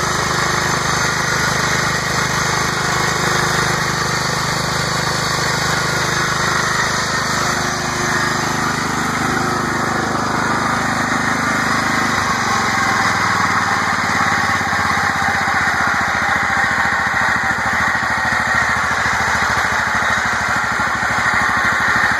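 Kohler Command 15 single-cylinder engine on a Ford New Holland LS35 lawn tractor running steadily, fed by a newly fitted Briggs & Stratton impulse fuel pump. About halfway through the engine note changes as the throttle lever is moved.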